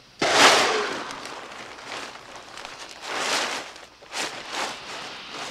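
Plastic-wrapped clothes and luggage rustling as they tumble out of a station wagon's open door: one loud rustling burst just after the start, then quieter rustles and shuffles.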